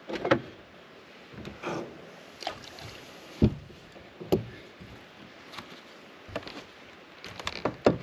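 Scattered knocks and clatters of gear being handled on a bass boat's front deck, with a heavier thump about midway and a quick run of clatters near the end.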